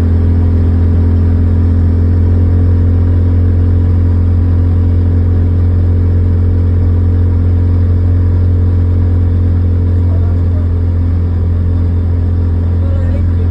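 Engine of a cab-enclosed ATV running steadily at cruising speed, a constant low drone heard from inside the cab.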